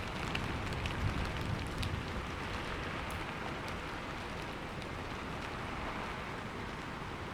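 Steady heavy rain with scattered sharp drop ticks. A low rumble, the tail of thunder, dies away over the first couple of seconds.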